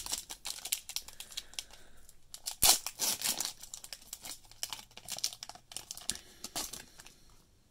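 Foil wrapper of a trading-card pack crinkling and being torn open by hand: irregular crackles, with the loudest rip about two and a half seconds in.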